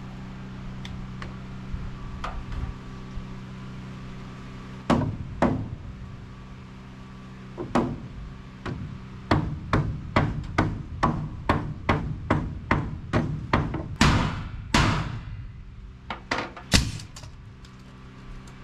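Hammer driving nails into wooden roof framing: a couple of blows, then a quick run of strikes at about three a second, then a few heavier blows, over a steady low hum.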